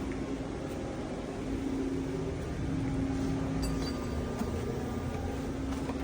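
CNC machine running with a steady hum, with a few faint ticks a little past halfway.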